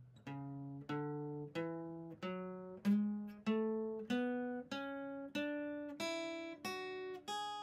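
Acoustic guitar playing a scale one picked note at a time, slowly and evenly at about one and a half notes a second, climbing step by step in pitch.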